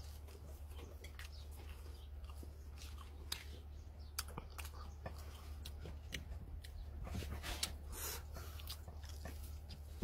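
Close-miked chewing and biting as a man eats charred eel pieces: irregular wet mouth clicks and small crunches over a steady low hum.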